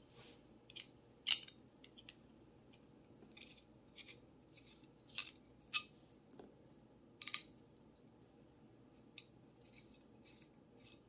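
Light metallic clicks and ticks of a small Allen wrench and tiny Allen screws being worked out of an aluminium pistol compensator and handled. They come irregularly, a dozen or so, with a few sharper clicks standing out.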